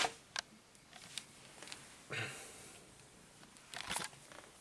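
Camera handling noise: scattered small clicks and knocks, with a short rustle about two seconds in.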